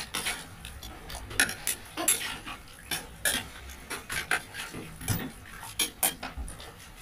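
A metal spoon clinking and scraping against an aluminium pressure cooker pot while stirring beef cubes, with irregular sharp clinks every half second or so.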